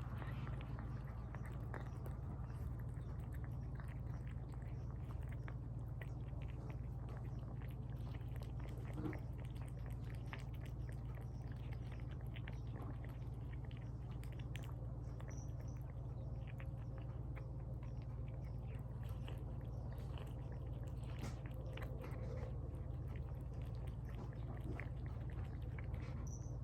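Cats eating tuna from bowls: many small irregular chewing clicks and smacks over a steady low hum.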